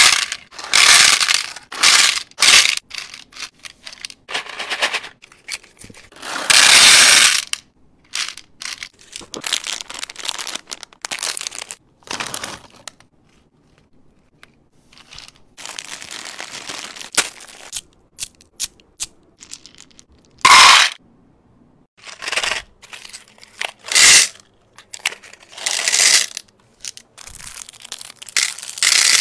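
Candy rattling out of boxes and bags into a divided plastic tray, with candy wrappers crinkling and tearing, in a series of short bursts.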